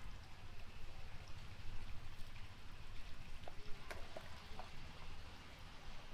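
Faint wet pattering of dripping water, with a few scattered small clicks and splashes.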